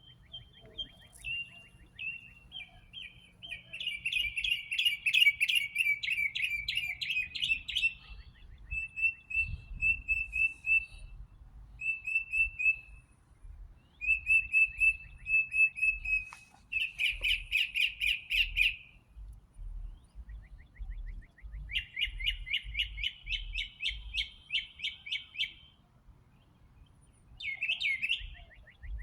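Songbirds singing in spring: bursts of rapid trilled phrases lasting a few seconds, alternating with runs of short, clear chirps, with brief pauses between phrases.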